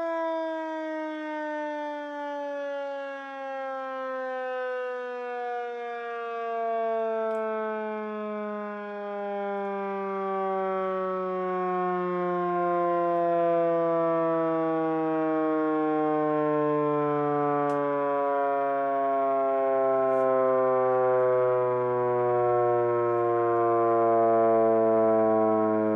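Miniature Federal Signal STH-10 siren with horns, its rotor spun by a Maytag induction motor, winding down after the power is cut. One continuous tone with many overtones slides slowly and steadily lower in pitch.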